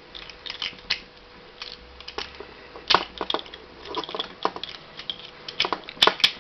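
Plastic parts of a Transformers Cybertron Red Alert action figure being handled and moved during transformation: scattered small clicks and scrapes as its toe pieces are pulled out, with sharper clicks about three seconds in and near the end.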